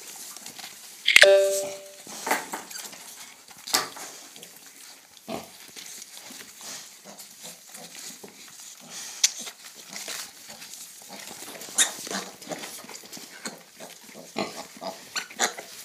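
Piglets suckling at a sow: scattered short grunts, snuffles and suckling noises. A sudden loud sound with a brief steady tone comes about a second in.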